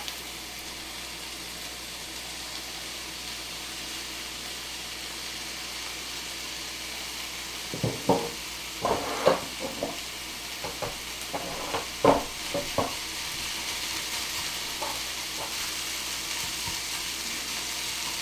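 Kimchi, onion and garlic frying in bacon fat in a pan, a steady sizzle. From about eight seconds in, a string of sharp knocks and scrapes as a utensil stirs the rice in against the pan.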